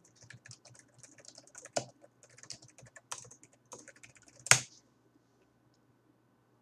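Typing on a computer keyboard: a quick run of key clicks, ending in one louder keystroke about four and a half seconds in.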